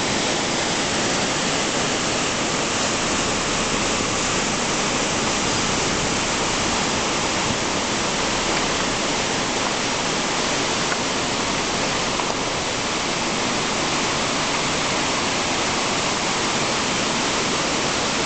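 Floodwater rapids of a mountain river, after heavy rain, rushing in a loud, steady roar of whitewater.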